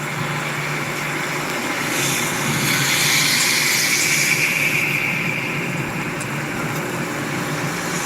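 Steady motor-vehicle engine noise with a low hum, and a louder hiss that swells about two seconds in and fades a few seconds later.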